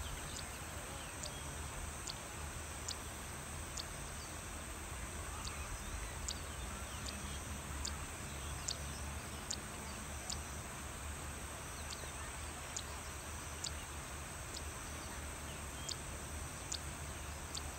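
Open-air riverside ambience: a steady low rumble and hiss, with short high chirps repeating every second or so.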